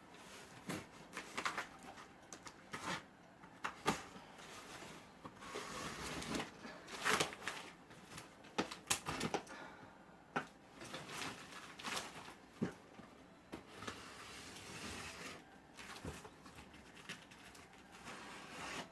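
A large cardboard box being cut and pulled open by hand: irregular rustles, scrapes, cardboard creaks and sharp knocks.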